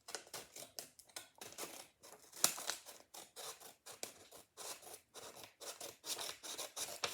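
Scissors snipping through a squishy blind bag in a quick run of short cuts, about three to four a second, with one sharper, louder snip about two and a half seconds in.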